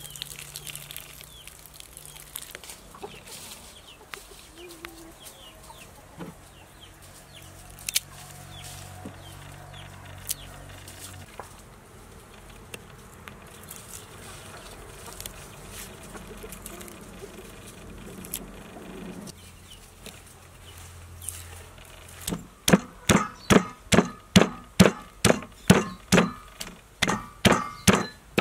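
Chickens clucking in the background, then in the last six seconds a wooden pestle pounding in a wooden mortar, loud regular strikes at about two a second.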